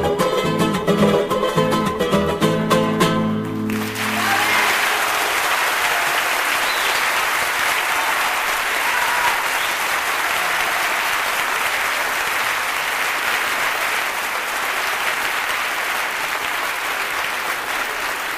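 An Andean folk ensemble's guitars and other plucked strings play the closing bars of an instrumental and stop on a final chord about four seconds in. Audience applause then breaks out and carries on steadily.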